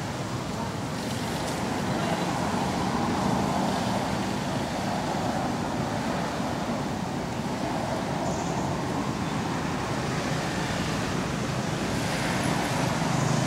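Steady outdoor background rumble, even throughout, with no distinct sounds standing out.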